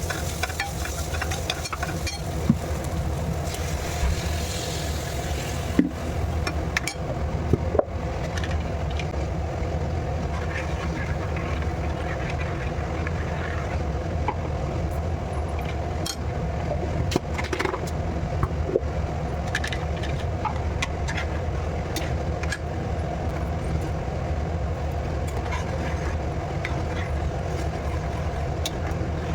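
A steady mechanical hum, with scattered light clicks and clinks over it.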